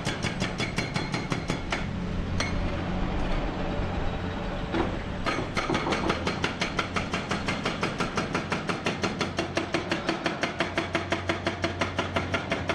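Hyundai R1200-9 crawler excavator working: a low, steady diesel engine tone under a rapid, regular metallic clatter of about five knocks a second. From about two to five seconds in, a rushing noise stands out.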